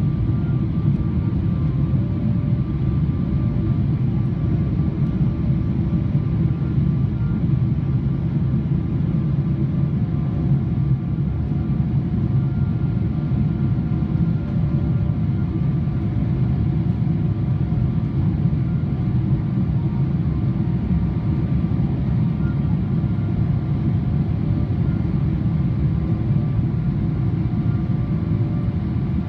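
Steady low rumble of a Boeing 777-300ER in flight, the airflow and its GE90 turbofan engines as heard inside the airliner, with faint steady tones above it.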